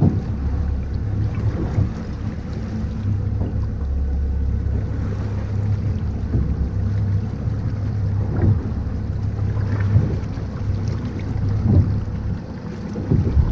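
Boat engine running with a steady low hum, wind buffeting the microphone, and a few short thumps.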